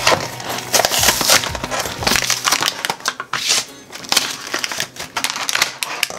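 Plastic and foil toy packaging being torn open and handled, crinkling and crackling irregularly.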